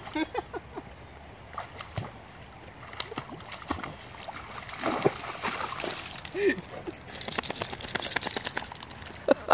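A dog wading and splashing through shallow creek water. Near the end there is a louder, hissing spell of water spray as it comes out onto the gravel bank.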